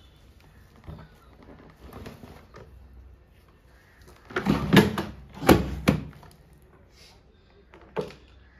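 Wooden harmonium case and cover being handled: two loud knocks a little past the middle and a sharper single knock near the end, with light rustling between.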